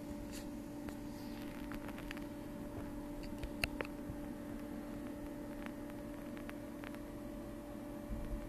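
Steady low hum over a faint hiss, with a few soft clicks scattered through, the loudest a close pair about three and a half seconds in.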